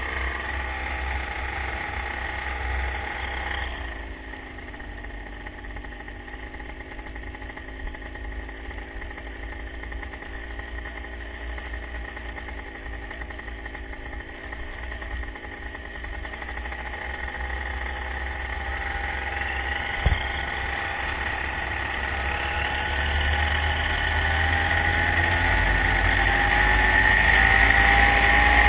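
An engine running steadily, its pitch rising and the sound growing louder over the last several seconds, over a low rumble. A single sharp knock comes about two-thirds of the way through.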